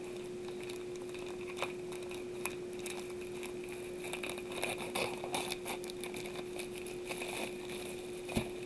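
Scissors snipping through a plastic poly mailer bag, with the plastic crinkling as it is cut and then pulled open by hand; short scattered snips and rustles, busiest midway, over a steady low hum.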